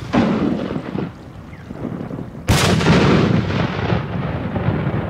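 3-inch spherical aerial firework shell: the echo of its mortar launch dies away while it climbs. About two and a half seconds in it bursts with one loud bang, its titanium salute, followed by a long rolling echo.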